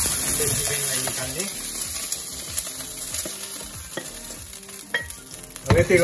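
Chicken pieces sizzling in hot oil in a nonstick wok, stirred and scraped with a wooden spoon. The sizzle fades in the second half as the wok comes off the burner, with a couple of sharp knocks of the pan near the end.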